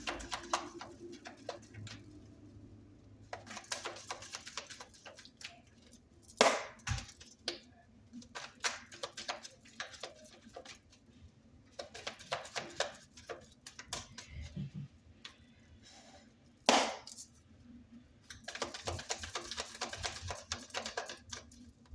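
A deck of tarot cards being shuffled by hand: runs of quick papery clicks and slaps with a few sharper single snaps.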